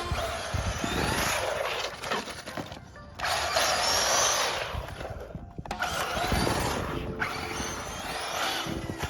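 Electric RC monster truck (Arrma Mojave on 8S with a Castle 2028 brushless motor) running on pavement in bursts: a rising high motor whine over tyre noise, dropping out twice briefly as the throttle is let off. Background music plays under it.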